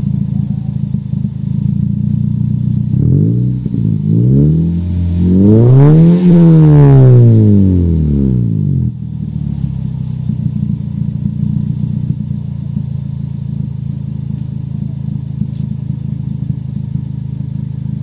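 Car engine idling through an aftermarket Pavta Sebring dual-tip carbon exhaust. About three seconds in it is blipped quickly a few times, then given one longer rev that rises and falls back to idle at about the halfway mark.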